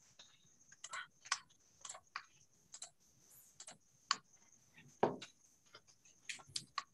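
Faint, irregular clicking of typing on a computer keyboard, with one louder, deeper knock about five seconds in.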